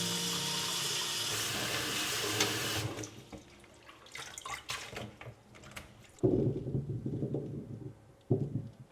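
Water running from a tap into a sink, shut off about three seconds in. Scattered light clicks and knocks follow, with two short, louder rubbing noises near the end.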